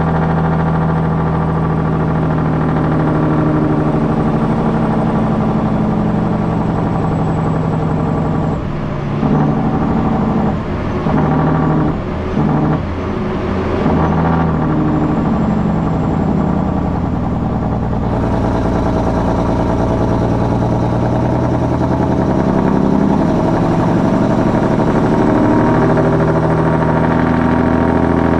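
Heavy truck's diesel engine running steadily under way. Its note dips and shifts several times about nine to fifteen seconds in, then settles again.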